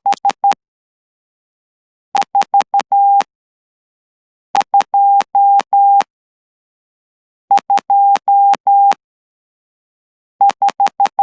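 Hand-sent Morse code: a steady mid-pitched sidetone keyed in dots and dashes with a straight key through a CW Player interface, as practice sending at about 12 words per minute. It comes in five short bursts of characters separated by pauses of about a second and a half, and each dot and dash starts and stops with a click.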